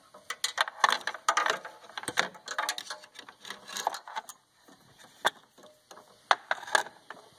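Irregular clicks, taps and rattles as a removed exhaust gas temperature sensor and its wire are handled and pulled up through a car's engine bay, with a few sharper clicks in the second half.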